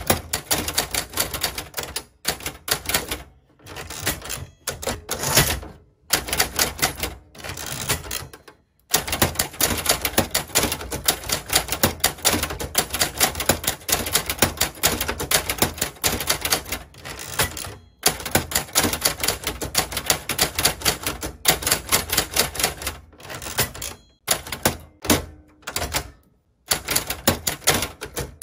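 Manual Hangul typewriter typing: quick runs of sharp key strikes as the typebars hit the paper, broken every few seconds by short pauses.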